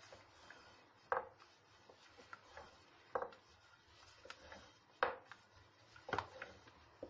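Long thin wooden rolling pin (oklava) rolling lavash dough on a floured board, knocking against the board. There are four sharp knocks a second or two apart, with lighter taps and rubbing between them.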